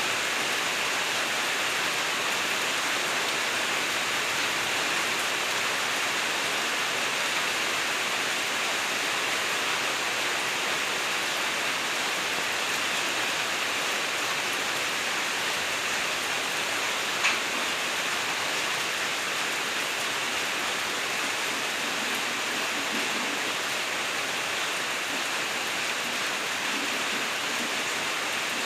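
Steady rain falling, an even hiss with no let-up, with one sharp tap a little past halfway through.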